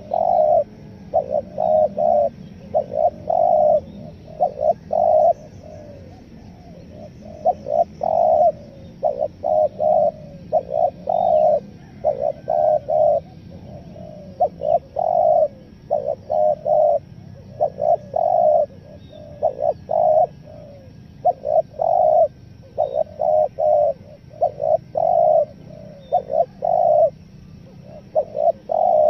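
Spotted dove cooing over and over in short clustered phrases of several low notes, a broken, stuttering coo typical of a dove calling to rivals and used as a lure call for wild spotted doves.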